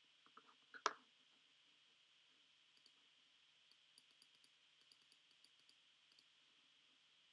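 Near silence with faint computer-mouse clicks: a run of quick clicks from about three to six seconds in, as the spreadsheet's zoom button is clicked repeatedly, and one louder click about a second in, over a low steady hiss.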